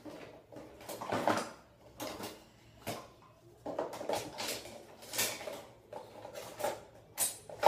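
Rummaging through a kitchen drawer: its contents clatter and shift in a run of short knocks and rattles, with a sharper clack near the end.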